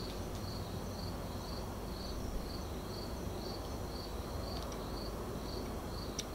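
A cricket chirping in a steady rhythm, about two chirps a second, over a faint background hiss.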